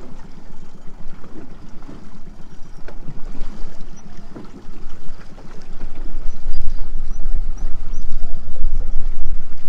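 Small boat's outboard motor running steadily under way, with water rushing and splashing along the hull. The sound grows louder and deeper about six seconds in.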